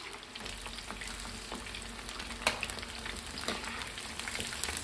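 Chicken kebab pieces deep-frying in a kadai of hot oil, stirred with a metal slotted spoon: a steady sizzle with scattered sharp ticks.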